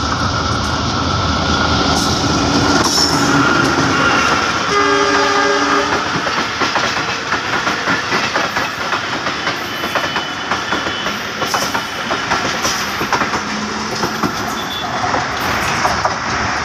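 Diesel-hauled passenger train approaching and passing close by, with a loud steady rumble. The horn sounds about five seconds in, then the coaches' wheels clatter rhythmically over the rail joints as they go by.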